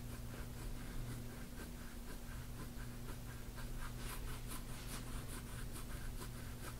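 Gua sha scraping tool stroking across the skin of a back: soft, quick, scratchy strokes, about three a second.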